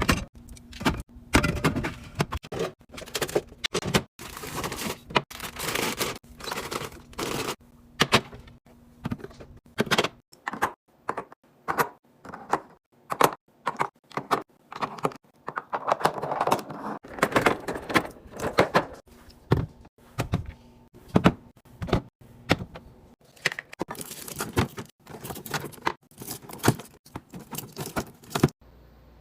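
Irregular clicks, knocks and clatter of food containers, jars and packages being handled and set down while a fridge is restocked, with some scraping and rustling and a faint steady hum at times. The sounds stop abruptly just before the end.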